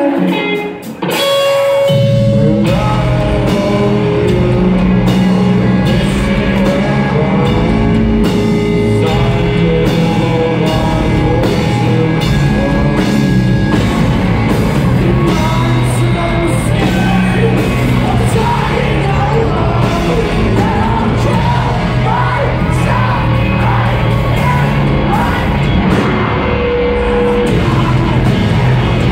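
Live rock band playing loud, with electric guitars, bass and drums. It opens briefly on a quieter moment, then the full band comes in about two seconds in and keeps going at full volume.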